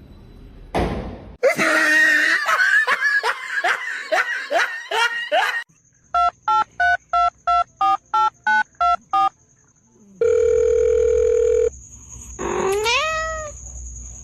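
A run of about ten short falling cries, then about ten evenly spaced electronic beeps like a telephone ringing, a steady tone held for about a second and a half, and a single rising-then-falling cat meow near the end.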